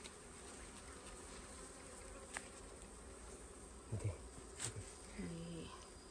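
Dwarf honeybees buzzing faintly and steadily around their freshly cut comb. A few soft handling knocks and a short low vocal sound come about four to five and a half seconds in.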